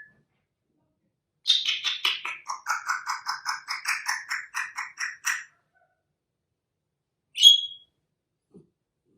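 African grey parrot giving a rapid run of warbling pitched notes, about five a second, for around four seconds. A single short whistle follows a couple of seconds later.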